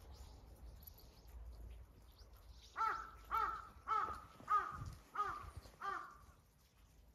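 A crow cawing six times in a row, each caw a little over half a second after the last.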